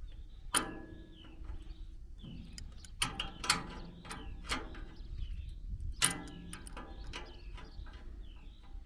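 A series of sharp mechanical clicks and knocks of small metal parts being handled, the loudest about half a second, three seconds and six seconds in, with birds chirping throughout.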